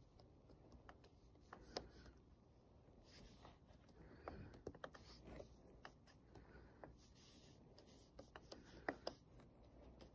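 Faint, irregular clicks of keys being pressed one at a time on a Brother P-touch label maker's keypad while a label is typed.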